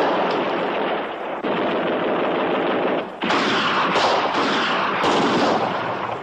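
Rapid automatic gunfire from machine guns, almost unbroken, with a brief pause about three seconds in.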